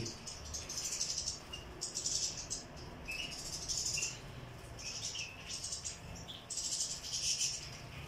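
Several European goldfinches chirping and twittering in short, repeated high bursts, with light splashing from birds bathing in a shallow water tray.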